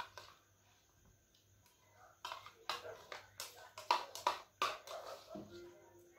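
Metal spoon scraping and knocking around the inside of a small bowl, a run of short, scratchy strokes as the last of the kheer is scooped out. A faint steady whine starts near the end.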